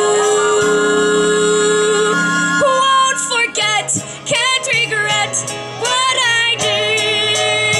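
A girl singing a slow show-tune ballad into a microphone over musical accompaniment: held notes at first, then from about three seconds a sung line with vibrato.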